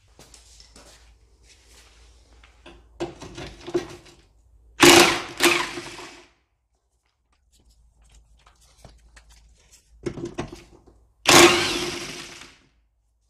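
Workshop tool noise during car strip-down: clicking and rattling of tools on parts, and twice a loud burst of a power tool, each about a second and a half long, starting sharply and fading.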